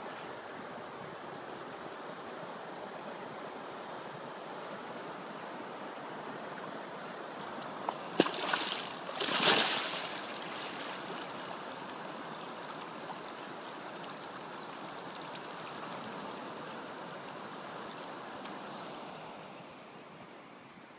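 Steady rush of fast, muddy river water running along an undercut sandy bank. About eight seconds in, a cracked slab of the bank breaks away into the current with a sharp crack and splash, followed about a second later by a louder, longer splash: the bank is eroding and collapsing into the river.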